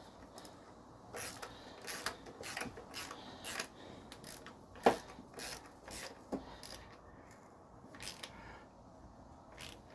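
Hand ratchet clicking in short strokes as the nuts are tightened down onto the engine mount's studs, with one louder knock about halfway through.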